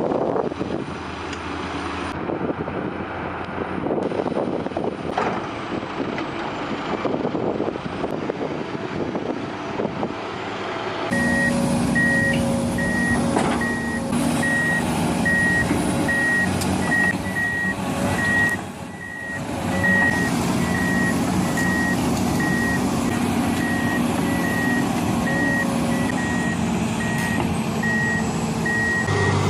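Heavy machinery's diesel engine running. From about a third of the way in, a reversing alarm beeps repeatedly over the engine hum.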